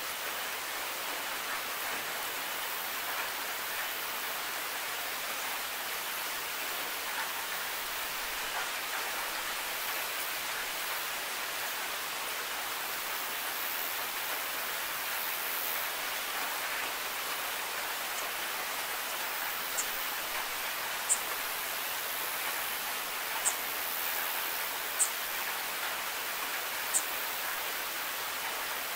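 Steady heavy rain, an even hiss with no let-up. A handful of sharp high ticks stand out in the last ten seconds.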